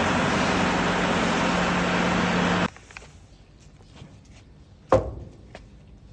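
Tractor-driven silage harvester running with a steady hum, cutting off abruptly a little under three seconds in. The rest is quiet with a few faint knocks and one sharp thump about five seconds in.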